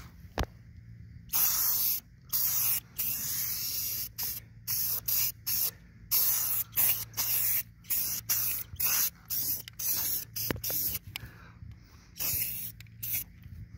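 Aerosol spray-paint can hissing in many short bursts, with a few longer ones near the start, as black touch-up paint is sprayed onto a car's chipped lower body panel.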